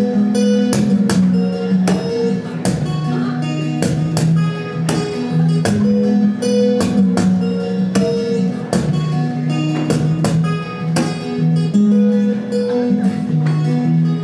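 Steel-string acoustic guitar strummed in a steady rhythm, about two or three strokes a second, playing a repeating chord pattern as an instrumental intro.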